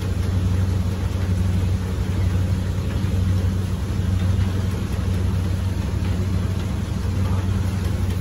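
A machine running steadily: a low hum under an even hiss, stopping abruptly at the very end.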